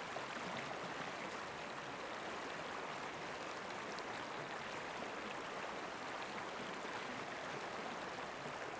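River rapids: a steady, even rush of water.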